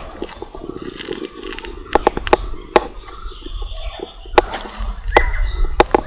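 A few sharp, irregular clicks from handling the fishing rod and reel while retrieving a lure, with a low rumble near the end.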